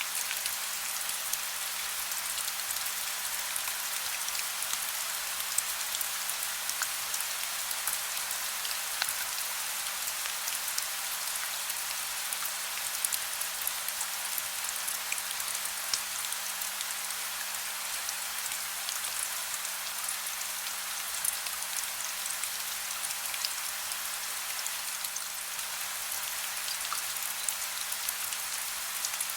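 Soft rain: a steady hiss of rainfall with a dense patter of fine drop ticks.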